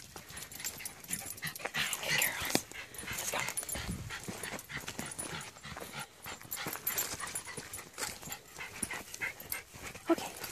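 Dogs playing at close range on a dirt trail: paws scrambling and scuffing through leaves and brush, with a few short high-pitched dog sounds.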